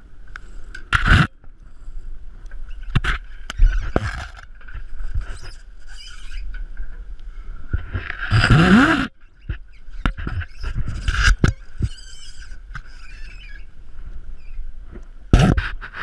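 Scrapes and knocks of a climber's harness, clips and ropes against a yacht's mast as he is hoisted up it, with a louder scraping rush about halfway through.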